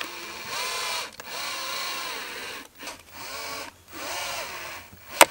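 Cordless drill/driver driving mounting screws into a wooden board in four short runs, its motor whine dipping and rising within each run. A single sharp click near the end.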